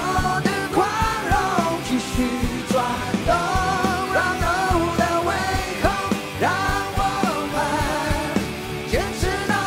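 Live rock song: male vocals over acoustic and electric guitars and a full band with a steady drum beat.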